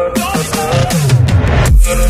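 Background electronic music: a falling pitch sweep leading into a heavy bass drop near the end.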